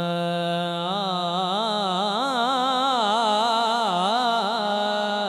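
A man's voice singing one long held note into a microphone, the opening of a sung naat verse; the note starts level, then from about a second in wavers up and down in melismatic ornaments.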